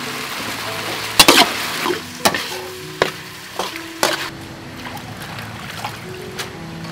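Food sizzling in a pan as it is stirred, with a utensil knocking against the pan about five times in the first four seconds; the sizzling dies down after that. Background music plays underneath.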